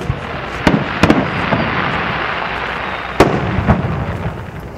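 Fireworks display: aerial shells bursting with several sharp bangs, the loudest about three seconds in, over a continuous hiss that fades toward the end.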